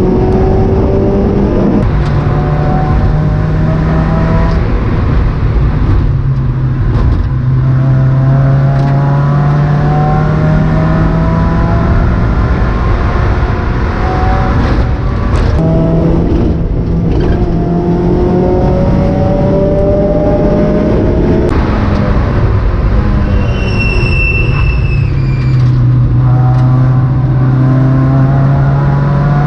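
Mazda MX-5 race car's four-cylinder engine heard from inside the cabin under racing load, its pitch climbing through the revs and dropping sharply at each gear change. A brief high squeal comes about 24 seconds in.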